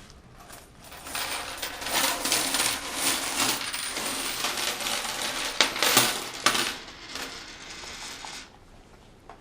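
Loose coins from vending machine collections clattering and jingling together in a dense run for several seconds, loudest about six seconds in, as the day's takings are handled for counting.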